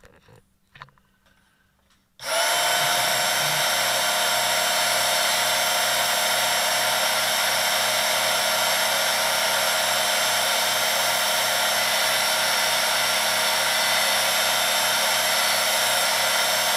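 Work Sharp Knife & Tool Sharpener, a small electric belt sharpener, switching on about two seconds in and then running with a steady whine while a fish hook is sharpened against its abrasive belt.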